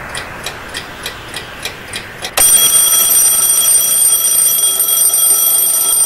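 A clock ticking about four times a second, then about two and a half seconds in an alarm clock starts ringing loudly and keeps ringing.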